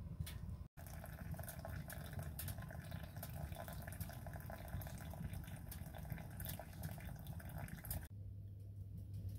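A thin stream of hot water runs steadily from the stainless tap of a Winnerwell hot water tank on a wood stove into a pour-over coffee filter in a mug. It ends abruptly about eight seconds in.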